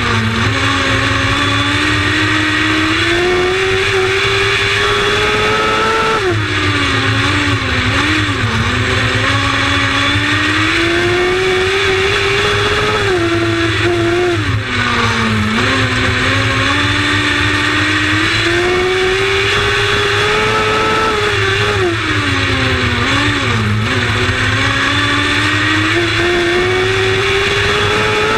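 Lightning Sprint race car engine running hard lap after lap. Its pitch climbs steadily for several seconds, then drops sharply as the throttle comes off, repeating about every seven to eight seconds.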